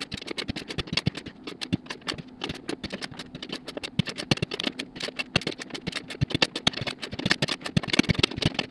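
Click-type torque wrench ratcheting on the beadlock ring bolts, sped up into a rapid, irregular stream of metallic clicks and rattles.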